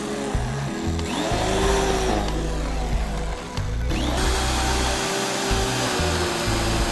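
Background music with a heavy, stepping bass line, mixed with the hiss and whine of an industrial machine at work; the machine sound changes abruptly about four seconds in.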